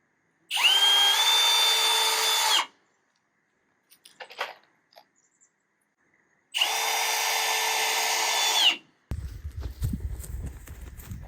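Electric drill run twice at full speed for about two seconds each time, its motor whine climbing as it spins up and dropping as it stops. Near the end there is a low, uneven rumble.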